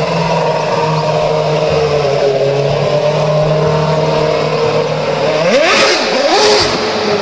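Formula One race car engine running at a steady pitch, then revving up with a rising whine about five and a half seconds in.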